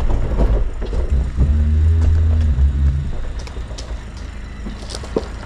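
A 4x4's engine pulling hard at low speed while the vehicle crawls over trail obstacles, loudest from about a second and a half to three seconds in, then easing off. A sharp knock comes near the end.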